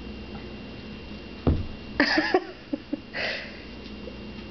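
A single thump, then a short burst of rustling with a few light clicks, and a second brief rustle, over a faint steady hum.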